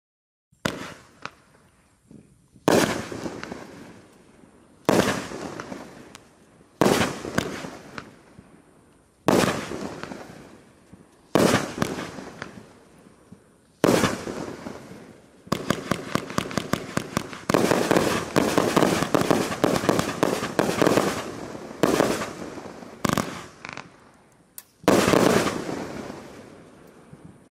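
A 30-shot consumer firework cake (Raccoon Fireworks Eagle Pride) firing: a series of slow single shots about two seconds apart, each a sharp report fading away, then a rapid-fire run of shots a little past halfway, ending in a few loud, widely spaced finale shots.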